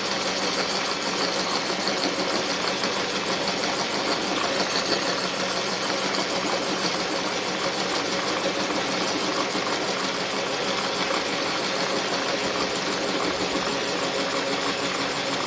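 Milling machine running steadily with its cutter taking a pass along the upper side of a metal part, a continuous mechanical hum with a high whine.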